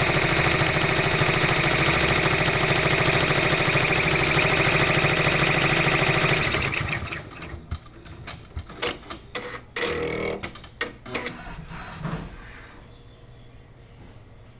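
Brother PR620 multi-needle embroidery machine stitching at speed with a fast, steady rhythmic clatter, stopping about halfway through. A few seconds of scattered clicks and clunks from the machine follow, then it goes quiet.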